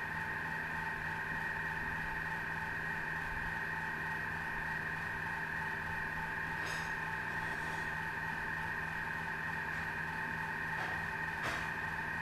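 Steady machine hum made of several fixed tones over a light hiss, with a couple of faint clicks, one about seven seconds in and one near the end.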